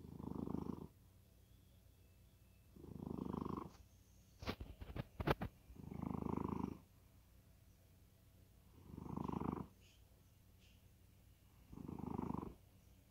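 A sleeping cat snoring, one rough snore with each breath about every three seconds, five in all. A quick run of sharp clicks falls between the second and third snores.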